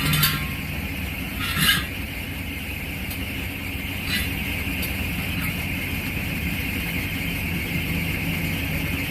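Truck engine idling with a steady low hum and a steady high hiss. Three short hissing bursts cut in, one at the start, one around a second and a half in and one about four seconds in.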